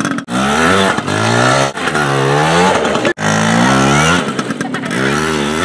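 Small two-stroke Yamaha PW80 kids' dirt bike revving up and down over and over as it is ridden hard in mud, spinning its rear wheel. The sound breaks off abruptly a few times.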